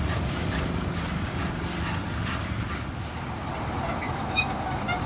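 Steam-hauled passenger train of coaches rolling past a station platform with a steady rumble, and a faint regular beat that fades out about halfway through. Two brief sharp knocks come about four seconds in.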